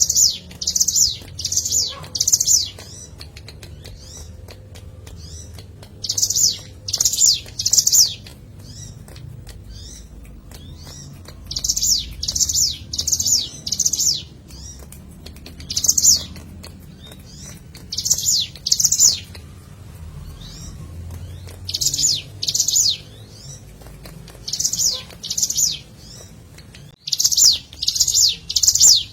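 Ciblek gunung (a prinia) singing: loud, high, sharp notes repeated in short runs of two to five, with pauses of a few seconds between runs.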